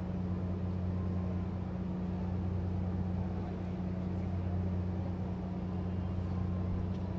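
Steady low hum of a large moored fishing ship's engines running, an even drone that does not change.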